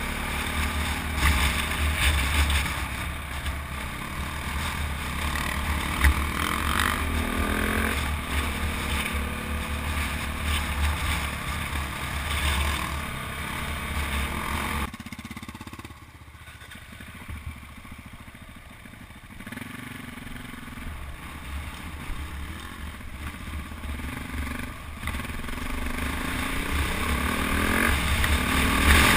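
KTM 400 EXC single-cylinder four-stroke dirt-bike engine running on the move, the revs rising and falling through the gears, with wind rumble on the microphone. About halfway it drops to a quieter, lower run, then climbs again near the end.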